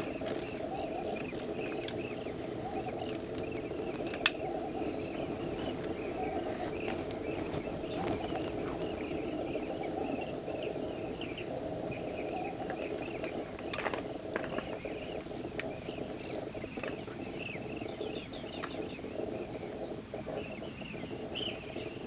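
Background bird chorus: many short chirps come and go over a steady low din of calls. A single sharp click sounds about four seconds in.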